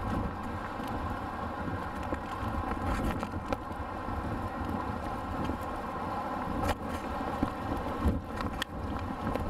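Gusty wind buffeting the microphone over the steady drone of a Boeing 737's jet engines on final approach, with a couple of brief knocks late on.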